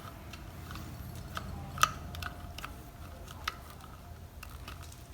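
Light scattered clicks and taps of plastic wiring-harness connectors being handled and pushed toward the MAP sensor on an LS 5.3 engine, the sharpest tick about two seconds in, over a low steady hum.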